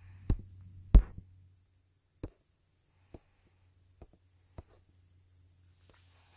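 Seven sharp knocks or taps, irregularly spaced about a second apart, the one about a second in the loudest, over a faint low hum that fades after the first second and a half.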